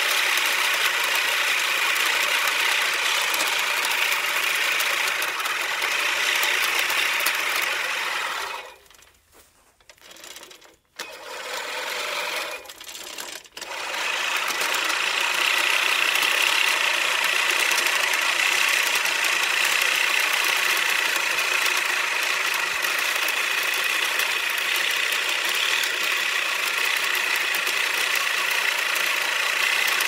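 Reel mower cutting grass: a steady whirring of the spinning blade reel. It stops for about two seconds a third of the way through, comes back weaker, pauses again briefly, then runs steadily.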